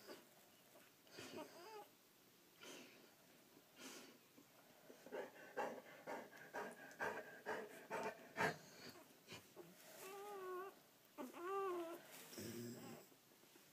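Dog whining during whelping: a series of short whines that rise and fall in pitch, bunched closely in the middle, with two longer whines near the end.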